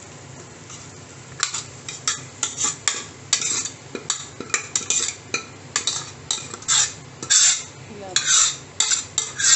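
A steel ladle scraping the inside of a metal cooking pot in short, quick strokes, two or three a second, starting about a second in, as thick spiced dal is scraped out into another pan. A low steady hum runs underneath.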